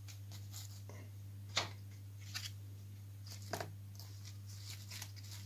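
Soft rustling and scraping of dry bark pieces being set by hand onto moss and leaf litter in a plastic tub, a few separate short scrapes with the most distinct about a second and a half in. A steady low hum runs underneath.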